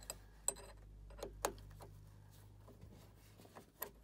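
Light, irregular metallic clicks and ticks of a long Allen key working a screw with a large washer into the pod's fixing disc, the two loudest about half a second and a second and a half in.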